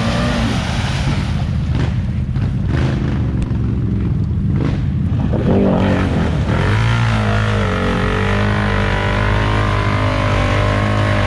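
Off-road vehicle engine running under load. For the first half its sound is rough and broken up by noise. About six seconds in it revs up and settles into a steady drone.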